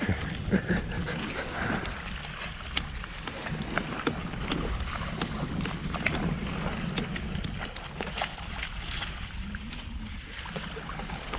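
Wind buffeting the microphone over the wash of water along a wooden sailboat's hull while under sail, with scattered light clicks throughout.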